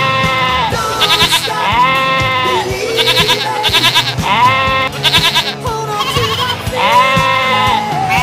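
Rock music with a drumbeat and a high, wavering voice-like line that rises, holds and trembles, repeating about every two seconds.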